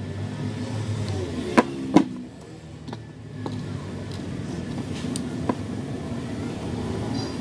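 Two sharp knocks close together, a plastic hot glue gun being set down on the craft table, followed by a few light clicks of handling. A steady low rumble runs underneath.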